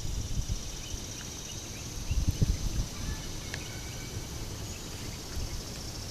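Steady high trill of insects, with low rumbling swells around two seconds in and a few faint clicks.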